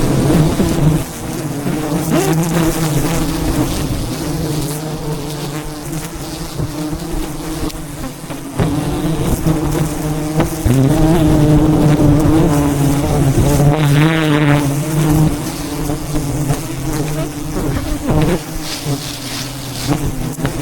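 A swarm of wild honeybees buzzing loudly and steadily around a disturbed hive, a dense humming drone that wavers slightly in pitch.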